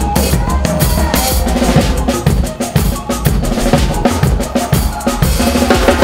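Acoustic drum kit played in a steady groove, with kick and snare hits driving, over a backing track with sustained pitched parts.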